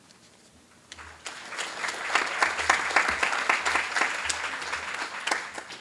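Audience applauding. The clapping starts about a second in, grows fuller, then thins out near the end.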